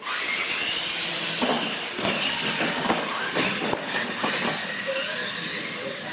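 Two R/C monster trucks launching at full throttle: the high whine of their electric motors and drivetrains, wavering up and down with tyre noise, starts suddenly. Several sharp knocks come as the trucks hit the launch ramps and land.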